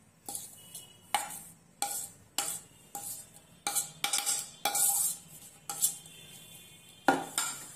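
A plastic mixing bowl knocked repeatedly against the rim of a metal mesh sieve to empty flour into it: about a dozen irregular knocks and clinks, each with a short ring, the loudest one near the end.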